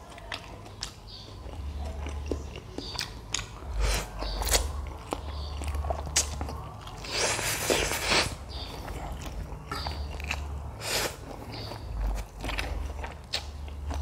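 A person eating noodles close to the microphone: chewing and biting with many short wet mouth clicks, and a longer noisy stretch of about a second midway.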